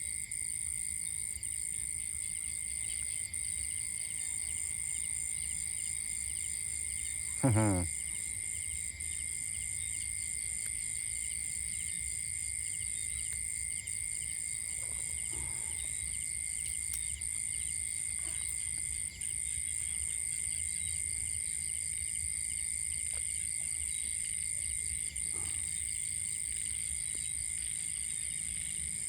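Night chorus of crickets and other insects: steady high-pitched trilling with a faster pulsing layer under it. About seven seconds in, one short, loud call drops quickly in pitch.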